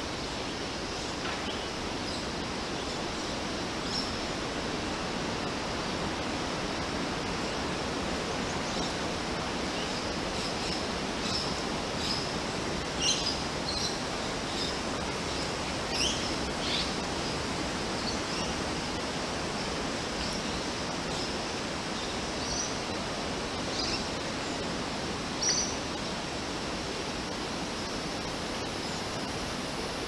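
Small birds giving short, high chirps and calls, scattered and most frequent through the middle of the stretch, over a steady hiss-like background noise.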